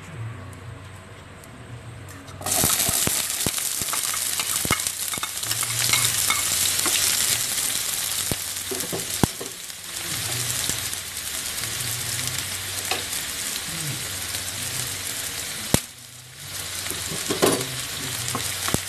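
Chopped onions tipped into hot coconut oil in a nonstick frying pan, starting a loud sizzle about two and a half seconds in, with a steel spoon stirring and now and then clicking against the pan. The sizzle dips briefly near the end, then comes back.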